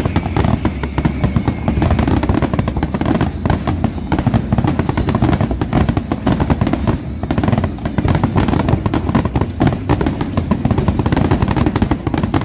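Aerial fireworks display going off in a dense barrage of rapid bangs and crackling, with music playing underneath.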